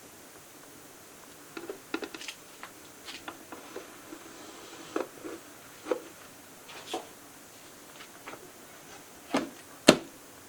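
Kitchen handling noise: scattered light clicks and knocks, with two louder knocks near the end.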